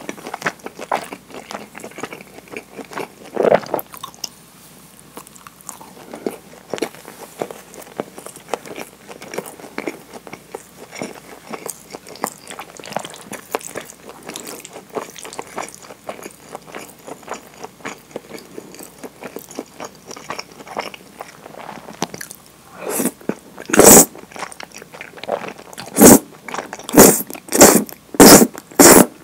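Chewing and wet mouth sounds of eating thick curry udon. From about three-quarters of the way in come a run of loud slurps, about one a second, as the udon noodles are sucked in.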